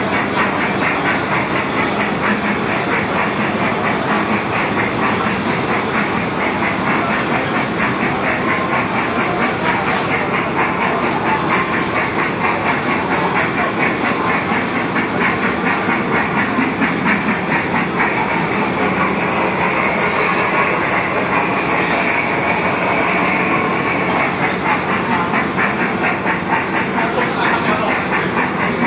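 Small Thomas the Tank Engine kiddie ride train running on its track, a steady loud clatter of fast, even ticks from the wheels and cars.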